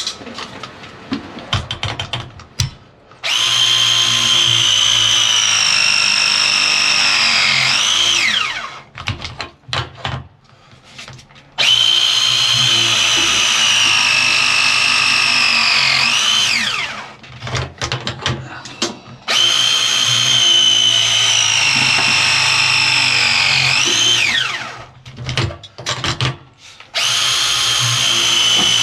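Power tool run four times, about five seconds each, with a high whine that sags slowly under load and then rises sharply just before it winds down. Clicks and knocks come between the runs.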